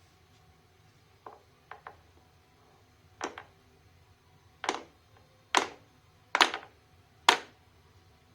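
Hammer tapping transfer punches on metal to mark screw-hole positions: three light taps, then five sharper, louder strikes about a second apart, each ringing briefly.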